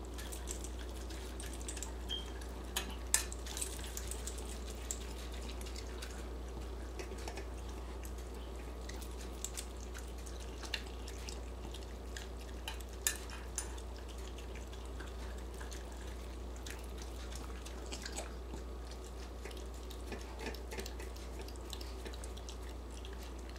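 Dog eating steamed spaghetti squash from a stainless steel bowl: faint wet licking and chewing, with scattered small clicks and clinks against the bowl, over a steady low hum.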